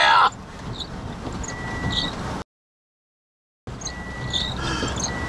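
Inside a vehicle in a storm: a steady low rumble of wind and rain noise, with short steady high electronic beeps repeating about once a second and brief squeaks from the windshield wiper. The sound cuts out completely for about a second midway.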